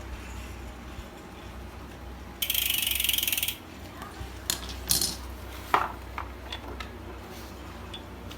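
A burst of very rapid ratcheting clicks lasting about a second, then a few scattered sharp clicks and knocks as bicycle pedal parts are handled.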